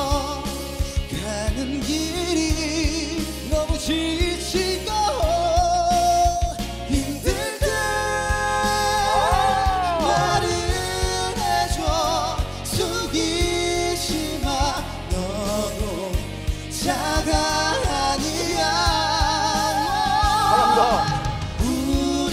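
A pop ballad sung live by male voices over band accompaniment, with long held notes and a clear vibrato.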